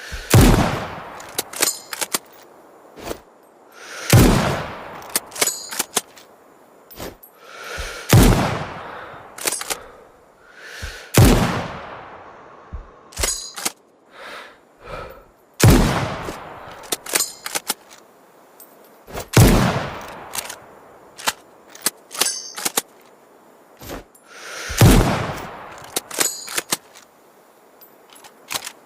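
Remington Model 700 VTR bolt-action rifle fired seven times, about one shot every four seconds, each report trailing off in a long echo. Between shots come short metallic clicks as the bolt is worked.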